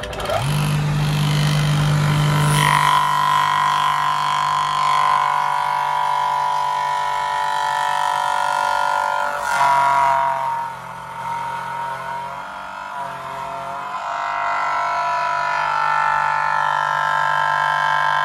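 Power cutting machine scooping out the back of a wooden tennis cricket bat to cut its weight. The motor spins up at the start, then runs with a steady whine. About ten seconds in its note drops and it grows quieter, then it picks back up near fourteen seconds.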